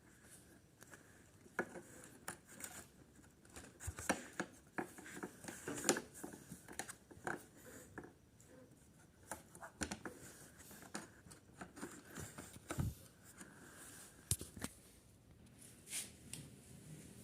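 Faint, irregular clicks and scrapes of a spanner and metal parts being handled while a nut is worked on a motorcycle's tail section, with sharp taps scattered through it and no steady rhythm.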